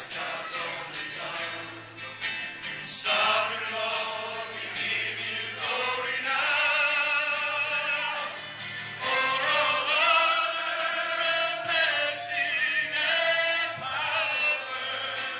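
Congregation singing a worship song together with a lead singer on a microphone, in long held phrases.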